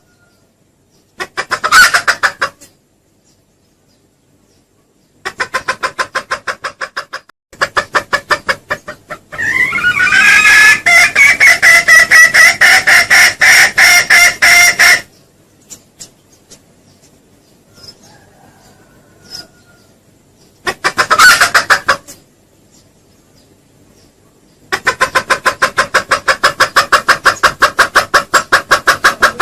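Jungle fowl lure call: six bouts of rapid clucking separated by short pauses. The longest bout, near the middle, lasts about six seconds and has a drawn-out steady tone running through it.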